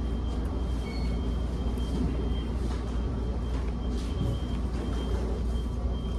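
An electronic beeper sounds a single high beep again and again, over a steady low rumble of room noise.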